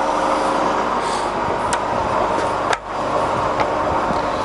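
Baoji BJ-1640GD centre lathe running under power with its lead screw and feeds engaged: a steady mechanical hum of the gearing with several steady tones. A few sharp clicks, the loudest about two-thirds of the way through.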